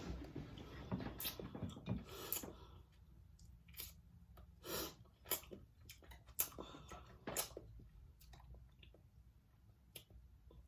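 Close-miked chewing of saucy seafood: a busy stretch of munching for the first couple of seconds, then scattered lip smacks and mouth clicks.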